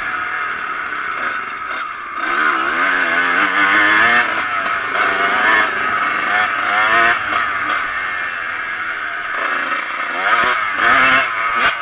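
Kawasaki KX125 two-stroke dirt bike engine revving up and down as it is ridden hard, the pitch rising and falling repeatedly, over steady wind noise on the microphone.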